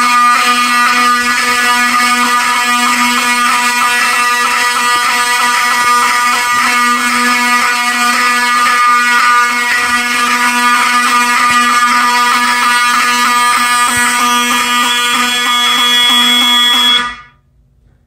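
Several fire alarm horns, Wheelock 7002s among them, sound together in one continuous, loud, harsh buzzing tone: the system is in alarm from an activated smoke detector. They cut off abruptly about a second before the end as the system is reset.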